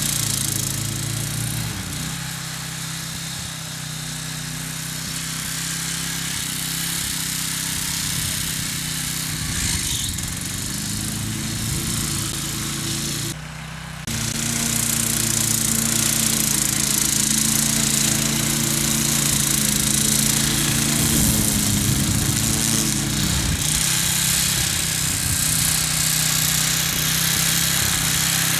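Wolf Garten ride-on mower's engine running while it mows tall, wet grass, its pitch rising and falling a little, with a brief dip in the sound about halfway through.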